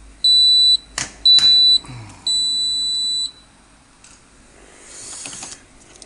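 Hotpoint Aquarius WMF520P washing machine's electronic beeper sounding three high beeps, two short and then a longer one, which likely signal the end of the wash programme. Two sharp clicks come between the first two beeps.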